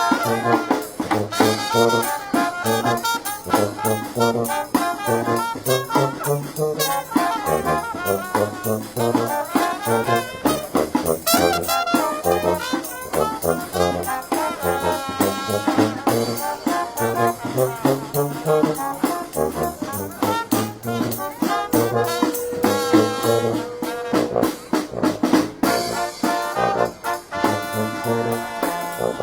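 Live brass band playing a jazzy tune, with brass melody over low notes that step along underneath.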